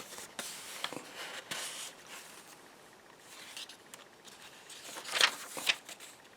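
Paper rustling as the pages and inserts of a handmade junk journal are handled, with a louder rustle about five seconds in.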